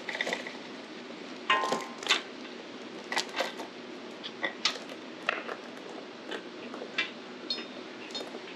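Minibike roller chain clinking and rattling as it is worked by hand around the clutch sprocket and rear wheel sprocket: scattered irregular metallic clinks, a few ringing briefly.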